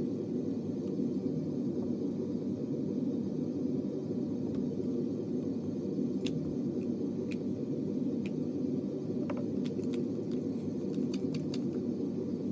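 A steady low hum runs throughout. Over it come a few light clicks and taps from makeup being handled, a makeup wand and its plastic tube, most of them near the end.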